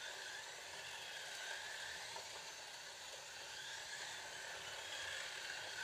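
Scalextric slot cars running around a plastic track: a steady, faint electric-motor whine that rises and falls slightly in pitch as the cars speed up and slow down.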